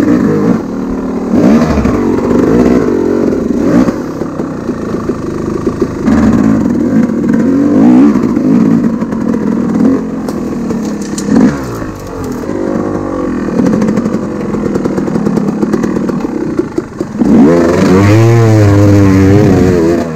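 Enduro dirt bike engine running under changing throttle as it is ridden over rough trail, the pitch rising and falling. It revs up and down repeatedly near the end.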